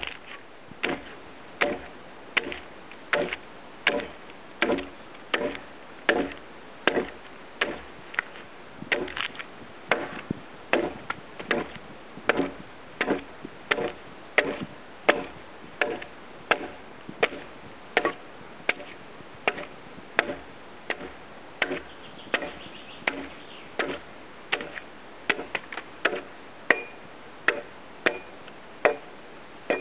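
Replica medieval axe chopping into a timber beam, hewing a tenon by hand: a steady run of sharp blows, about three every two seconds.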